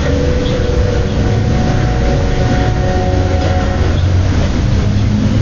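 Steady low rumble and hiss of a heavily amplified quiet-room recording, with a few faint held tones for the first few seconds and no distinct strikes.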